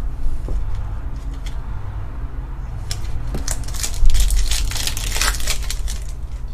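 The wrapper of a Panini Fortnite Series 2 trading card pack being crinkled and torn open by hand. A dense crackling rustle is loudest about four seconds in.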